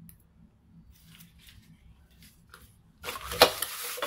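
Faint handling rustles, then about three seconds in a loud scraping rustle with a sharp knock, as a container and a paper towel are handled at the board.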